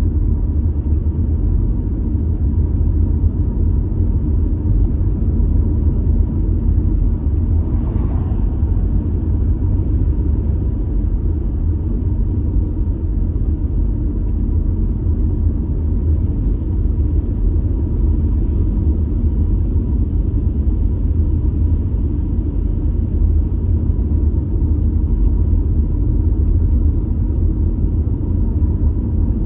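Car driving at low speed: a steady low rumble of tyres on the road and the engine running, with no change in pace.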